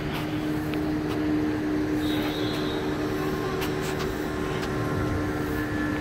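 A steady engine hum: one low, unchanging tone with its overtones, over a background of outdoor noise, with a few faint clicks.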